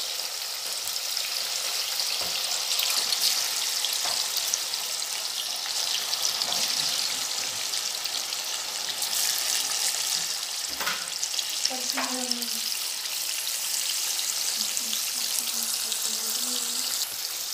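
Marinated chicken pieces sizzling in hot coconut oil in a wok-shaped pan: a steady, crackling frying hiss, with a few light knocks now and then.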